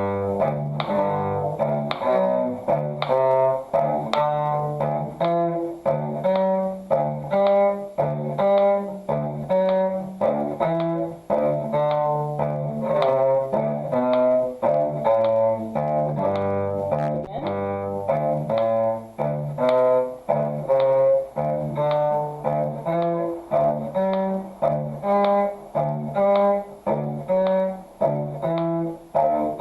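Bowed string instrument playing a one-octave G major scale in a steady rhythm, with a D sounded between the scale notes, over a metronome clicking about twice a second.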